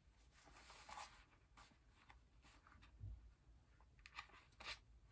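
Near silence: room tone with a few faint, short rustles and light clicks.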